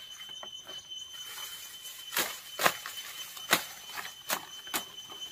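Several sharp cracks and knocks, about one a second, as bamboo stems are handled and broken at ground level, over a steady high-pitched insect drone.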